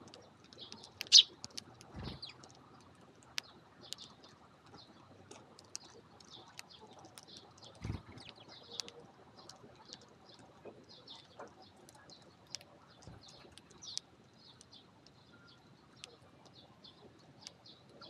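Eurasian tree sparrows chirping in short repeated calls while feeding, with one loud chirp about a second in. Thin sharp clicks of beaks pecking rice grains on the floor close by, and a couple of low thuds.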